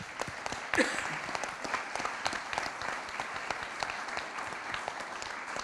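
Audience applauding, a dense patter of many hands clapping, with one brief louder sound about a second in.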